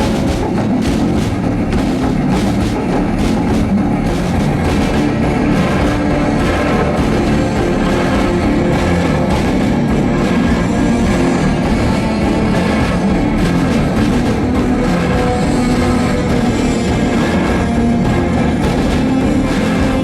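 Loud music from a women's drum show ensemble: rhythmic drumming over sustained instrumental tones, with the drum strokes densest in the first few seconds.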